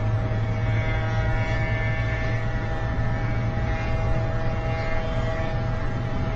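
Steady drone of a car cruising at high speed, heard inside the cabin: a constant engine note with road and wind noise, with no change in pitch.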